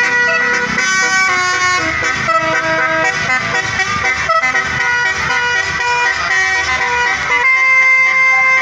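Bus telolet horn, a set of multi-tone air horns, playing a tune: held horn chords stepping from pitch to pitch every fraction of a second, with one chord held for about a second near the end. Engine noise runs underneath.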